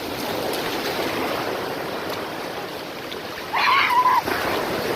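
Sea surf washing on the shore, a steady rush of water, with a brief high-pitched voice crying out about three and a half seconds in.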